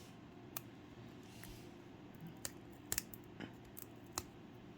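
Faint, scattered small clicks and taps of tools and tiny parts being handled while an iPod Nano 3rd generation is taken apart by hand. There are about half a dozen of them, with a quick double click about three seconds in.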